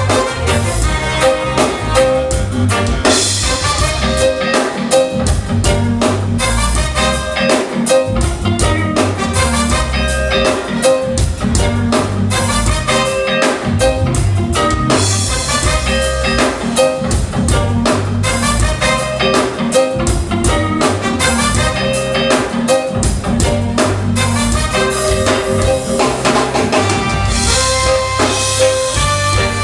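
Live reggae band playing an instrumental passage with a drum kit keeping a steady beat.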